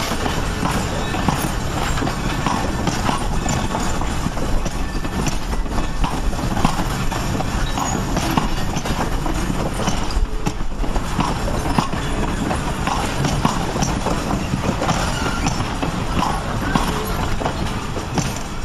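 Passenger coaches rolling past close by: a steady rumble of steel wheels on rail, with repeated clacks as the wheels cross the rail joints.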